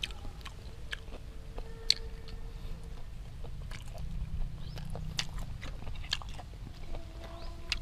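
Close-up mouth sounds of biting and chewing grilled apple snail meat pulled off a skewer: scattered sharp clicks and smacks, the loudest about two seconds in.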